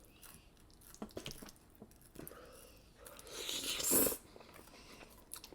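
Sweet Filipino-style spaghetti being eaten close to the microphone: a few small clicks and squishes, then a slurp that builds for about a second and cuts off abruptly about four seconds in.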